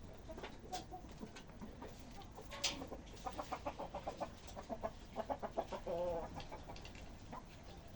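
Chickens clucking: a few scattered clucks, then a quick run of short clucks about three seconds in, ending in one longer drawn-out call near the end of the run.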